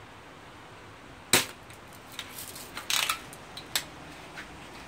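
A BB gun firing once, a single sharp crack about a second in, followed by a few quieter clicks and rattles and one more short sharp click near the end.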